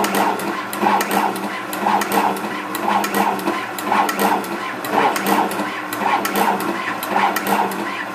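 SMT pick-and-place machine running, its placement head shuttling between the LED tape feeders and the board. A steady motor hum with a regular clatter about twice a second and quick sharp clicks.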